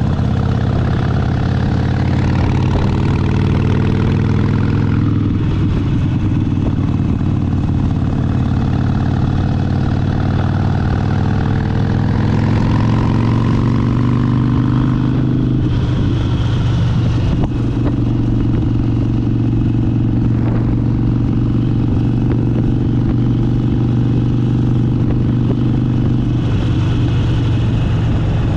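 Harley-Davidson Sportster Seventy-Two's air-cooled 1200 cc V-twin riding on the road, its revs climbing under acceleration and dropping at a gear change about five seconds in. The pitch climbs again, drops around sixteen seconds, then holds steady at cruise.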